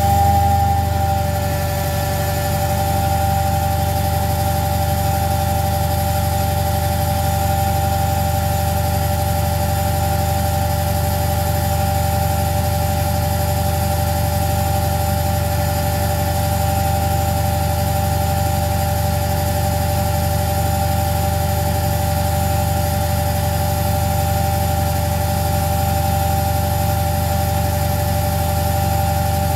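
Beko washing machine in its spin cycle: the motor's whine levels off at full spin speed in the first second, then the drum spins steadily with a constant whine over a low hum.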